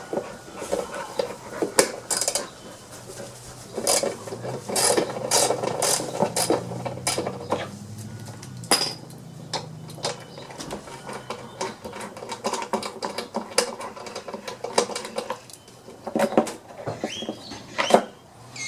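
Hand ratchet clicking in uneven runs as the small 1/4-inch bolts holding a mower's plastic front-drive cover are backed out, with scattered knocks and clinks of tool on metal and plastic.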